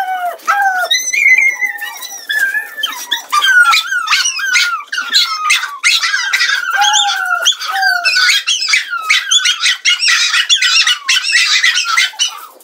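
Two small dogs barking and yapping rapidly in high, squeaky, chipmunk-like voices, the barks crowding together and overlapping more densely about halfway through.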